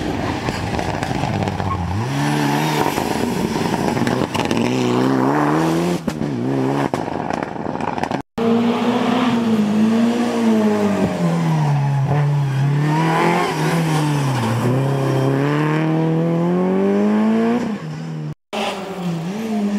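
Rally car engines revving hard on a mountain stage, the pitch climbing and falling again and again through gear changes and lifts. The sound cuts off abruptly twice.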